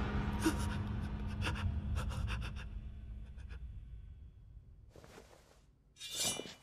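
Low rumble dying away after an impact, with scattered light clicks and ticks over it, then a short breathy sound near the end.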